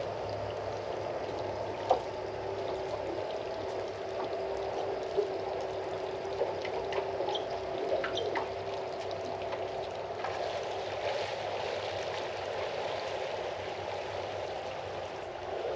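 Waterfall water pouring and splashing steadily into a pool, with a faint steady hum underneath and a few small ticks and splashes.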